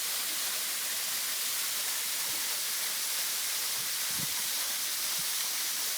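Waterfall with a light flow going over it, a steady rushing hiss.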